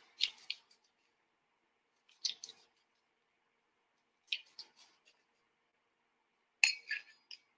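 Kitchen knife chopping sliced leek on a plastic cutting board: four short runs of quick cuts, about two seconds apart.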